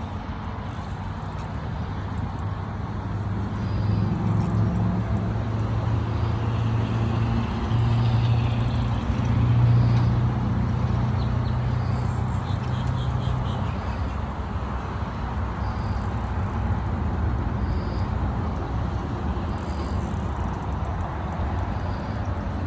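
A motor's low, steady hum that swells in the middle and then eases off, over a constant rushing noise.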